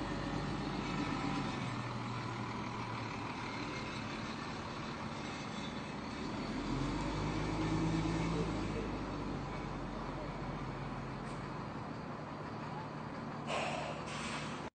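Engine of a large motor vehicle, such as a truck, running steadily. Its hum grows a little louder about halfway through. A short hiss comes near the end.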